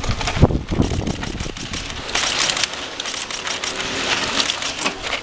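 A pack of mountain bikes riding past close by on a dusty dirt singletrack: knobby tyres crunching over loose grit and gravel, with many sharp clicks and rattles. The crunching hiss grows stronger about two seconds in as the riders reach the camera.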